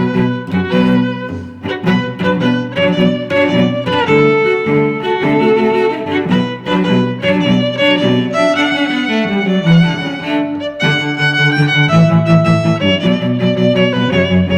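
Background music: a string arrangement with violins and cellos playing a driving, rhythmic figure.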